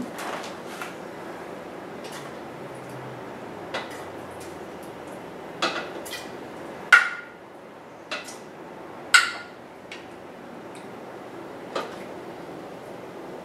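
Metal kitchen tongs clinking against glass mason jars and a plastic canning funnel as chunks of cooked beef are dropped in, one at a time. There are several sharp, separate knocks; the two loudest, about seven and nine seconds in, ring briefly like glass.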